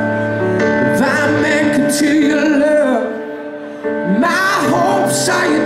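Live band playing a slow ballad, with held chords under a male lead vocal that sings two long phrases with vibrato, one early and one near the end.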